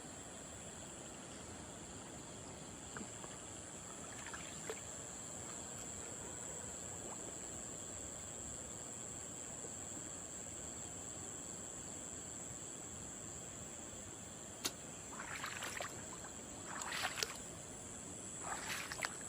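A steady high-pitched insect chorus over a low background hiss. Near the end comes a sharp click, then three short bursts of water splashing and sloshing, a second or so apart.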